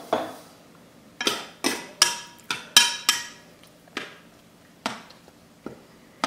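A spoon knocking and clinking against a saucepan as the pot is stirred: about ten sharp metallic clinks, unevenly spaced, each ringing briefly.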